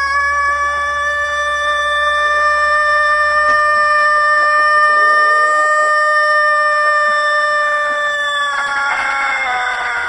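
Rooster holding one very long crow at a steady pitch, which turns rough and drops in pitch near the end.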